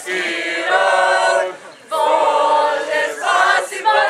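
A group of young voices singing together in unison, holding notes in short phrases, with a brief break near the middle.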